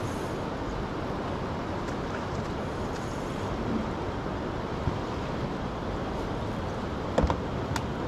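Steady rushing noise of the fast-flowing Orinoco River's water over rocks, with a couple of sharp clicks about seven seconds in.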